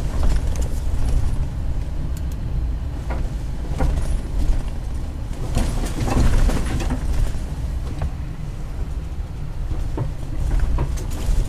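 A car being driven slowly, heard from inside the cabin: a steady low engine and road rumble, with a few short knocks and rattles scattered through it.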